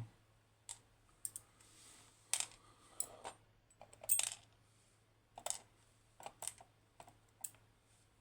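Small metal lock pins and parts being handled and set down on a hard surface while a 15-pin lock is taken apart: about a dozen sharp, irregular clicks and taps, the loudest about four seconds in.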